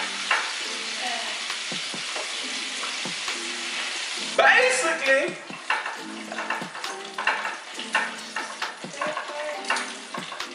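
Food frying in hot oil, a steady sizzle. About four seconds in comes a sudden loud burst, after which the sizzle drops and is replaced by intermittent clinks of metal tongs against dishes.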